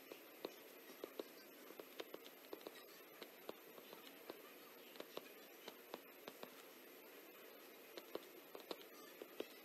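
Stylus tapping and writing on a tablet's glass screen: light, irregular clicks over a faint steady hiss.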